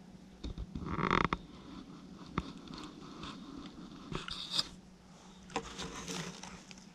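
Raccoon feeding from a plastic dish: scattered clicks, scrapes and rustles of its paws and snout in the bowl, loudest about a second in, with a faint steady hum underneath.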